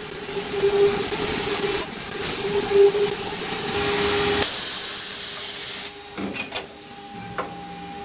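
Automatic lock-cylinder machining station running: the spindle hums steadily while the cutter works a brass lock cylinder with a loud, hissing cutting noise. About six seconds in the cutting noise stops, followed by a few sharp clicks and a quieter steady machine hum.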